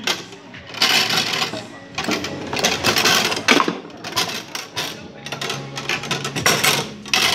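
Foosball table in play: the metal rods slide and spin and the player figures knock the ball against the wooden sides, giving rapid clacking and rattling in several loud spells with short lulls between them.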